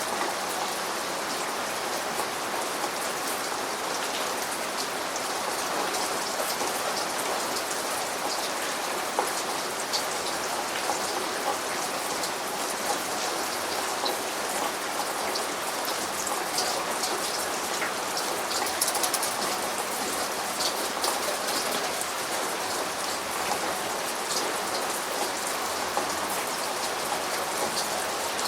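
Steady rain falling, a dense hiss of drops with many individual drop taps on a surface.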